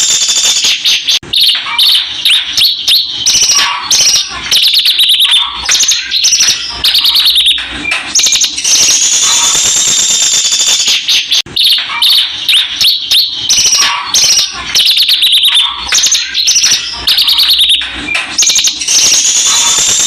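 Javan bush lark (branjangan) singing in full song: a long, continuous stream of rapid high chirps and trills, with a high rattling trill and falling whistled phrases. The same run of phrases comes round again about every ten seconds.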